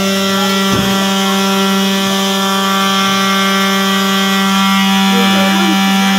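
Apartment building fire alarm sounding: a loud, steady, unbroken buzz on one low pitch.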